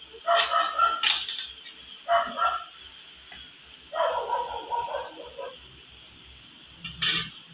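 A dog barking and yipping in short bursts, several times.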